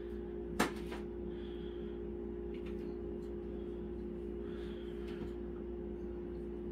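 Steady mechanical hum holding a constant low tone, with one sharp click about half a second in.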